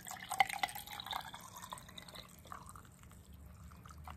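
Drink poured from a plastic jug into a copper mug, splashing and trickling as it fills, busiest in the first second or so and then dwindling.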